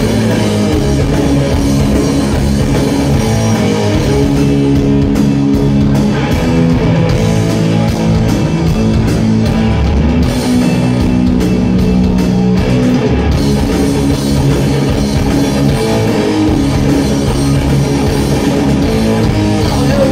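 Live heavy rock band playing an instrumental passage: electric guitar riffing over a drum kit, loud and steady throughout.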